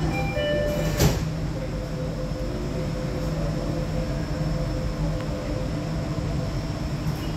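MRTJ 1000 Series 'Ratangga' metro car: the door-closing chime finishes in the first second, then the sliding doors bang shut about a second in. After that the car's electrical equipment hums steadily, with a held mid-pitched tone.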